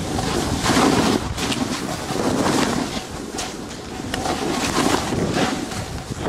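Wind buffeting the microphone of a moving snowboarder's camera, surging and easing, mixed with the hiss of the snowboard sliding through deep snow.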